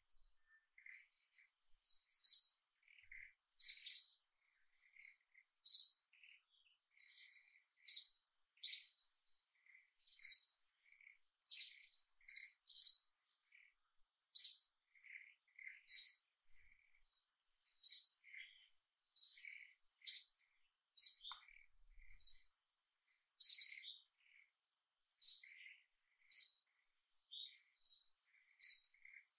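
Small bird chirping over and over, one short high chirp about every second, with fainter, lower chirps in between. A faint, thin, steady high tone runs behind them.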